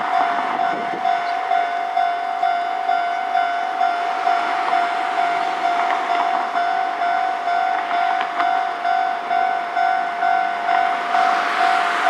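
Japanese level-crossing alarm ringing: an electronic bell repeating one pitched ding at a steady, even rate, the warning that a train is approaching. Near the end the running noise of a KiHa 11 diesel railcar grows as it draws close.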